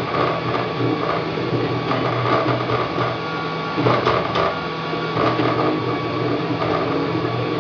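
Wanhao Duplicator 3 dual-extruder 3D printer printing: its stepper motors whine in steady tones that change pitch every second or so as the print head changes moves, with a few light clicks about four seconds in.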